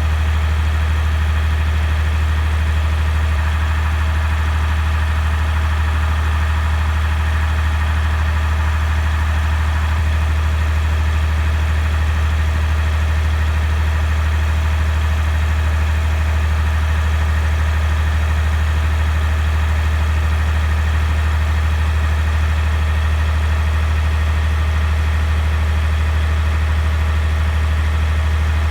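Tractor engine running at a steady speed with a deep, even hum, powering a three-point-hitch backhoe.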